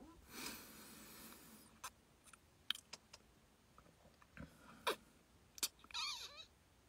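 Quiet close-up handling noise: a soft rustle for the first second or so, then a few sharp clicks, and a brief wavering sound near the end.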